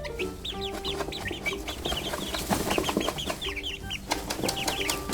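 Small birds chirping: many short, falling chirps overlapping, several a second.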